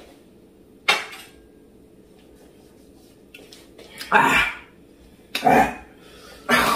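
A sharp clack about a second in, then three short, loud, wordless vocal outbursts, yelps or squeals from the women.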